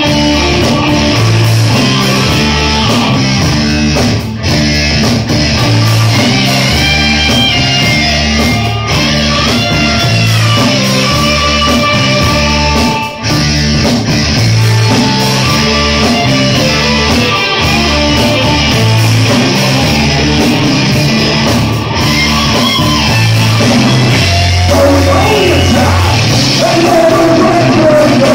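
Rock band playing loud and continuous on electric guitars, bass guitar and drum kit.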